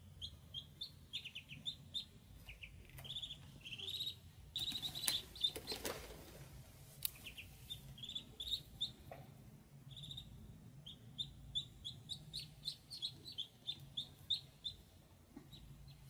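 Ducklings peeping, a steady run of short high chirps. A brief rustling noise about five seconds in is the loudest moment.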